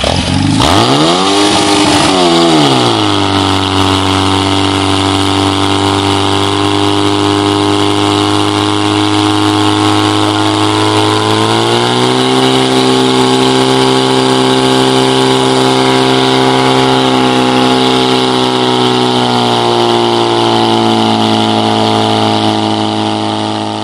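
Engine of a portable fire pump running hard while driving water through the attack hoses. Its revs surge and settle in the first few seconds, then hold steady, step up about twelve seconds in, and ease down slightly about twenty seconds in.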